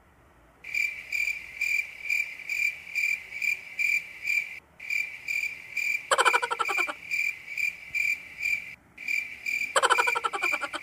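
Crickets chirping, a steady run of about four chirps a second at one high pitch, cutting in abruptly about a second in. Twice, near the middle and near the end, a louder, lower rattling call falls in pitch for under a second.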